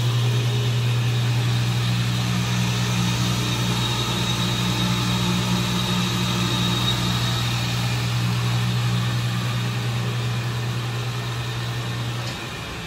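Sampson SC-12 chop saw's 3 hp three-phase motor running with its 12-inch blade spinning free, a steady hum with a high whine over it. Near the end the motor is switched off: the hum stops abruptly and the sound starts to die away as the blade coasts down.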